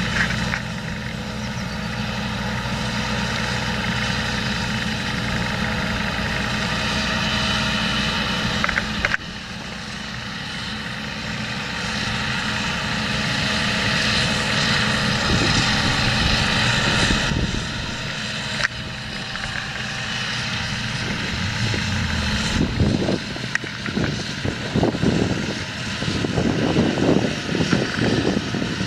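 John Deere 7230R tractor's six-cylinder diesel engine running steadily under load while pulling a Väderstad Rapid seed drill. The steady drone changes abruptly about nine and seventeen seconds in. Uneven rumbling bursts come through in the last several seconds.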